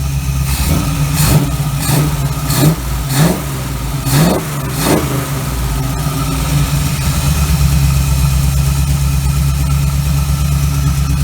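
Small-block Chevy 350 V8 running on a freshly rebuilt Holley carburettor. It is blipped through about seven quick revs in the first five seconds, then settles to a steady idle.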